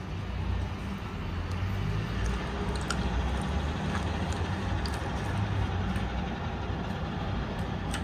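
Steady low rumbling background noise, with a few faint ticks.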